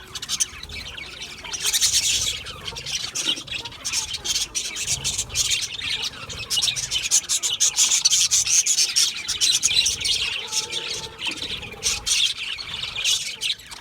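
A flock of budgerigars (budgies) chirping and chattering continuously, with many rapid overlapping chirps, squawks and clicks.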